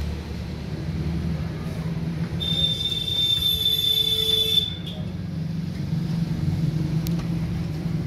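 Kirloskar 24 hp two-cylinder diesel engine running steadily with a low hum. About two and a half seconds in, a high steady whistle sounds for roughly two seconds, then stops.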